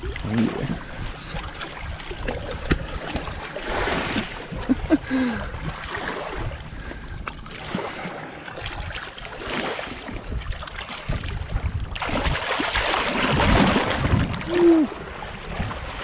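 Shallow lake water sloshing and splashing as a large flathead catfish is held and let go by hand at the water's edge, with a louder, fuller rush of water for a couple of seconds near the end.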